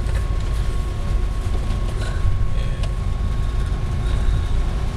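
Steady low rumble of a vehicle engine idling, heard from inside the cabin, with a faint steady whine above it.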